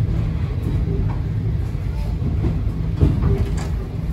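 Passenger train rolling through a station with a heavy, steady rumble and scattered wheel clacks over rail joints; one sharper clack about three seconds in.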